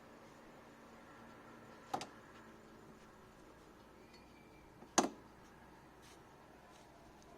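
Two sharp clinks of hard objects knocking together, about three seconds apart, the second louder, over a faint steady background.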